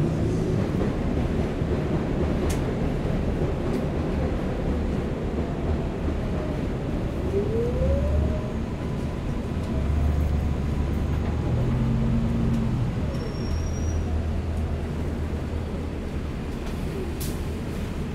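Running noise inside an articulated city bus: a steady low engine and road rumble, with a short rising whine about seven seconds in.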